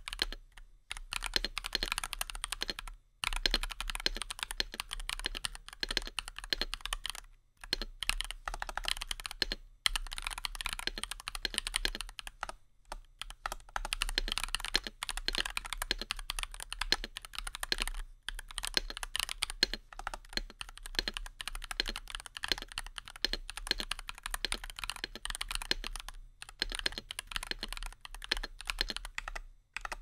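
Fast, continuous typing on a Nuphy Halo65 mechanical keyboard with Gateron Baby Kangaroo tactile switches, an aluminium plate and double-shot PBT keycaps: a dense stream of key clacks, broken by a few brief pauses.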